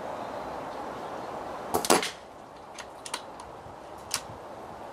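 Falcon Prairie .177 PCP air rifle firing with a sharp crack about two seconds in, followed by several light metallic clicks as the bolt is cycled and the self-indexing magazine turns the next pellet into line.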